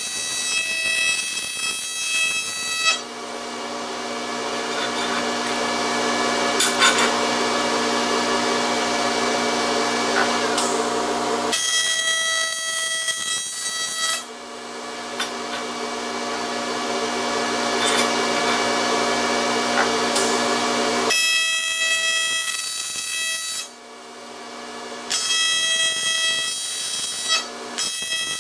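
AC TIG welding arc on aluminum: a steady, harsh electrical buzz as the runners are welded to the base plate. The pitch and tone of the buzz shift abruptly several times, with a brief dip in level about three-quarters of the way through.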